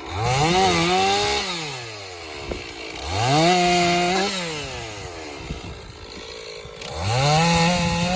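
Stihl MS460 two-stroke chainsaw bucking an elm log, revved to full throttle three times. Each time the pitch rises, holds for about a second and then falls back toward idle between cuts.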